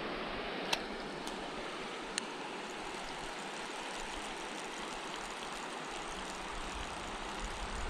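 Creek water running steadily over rocks, with two faint sharp clicks in the first couple of seconds.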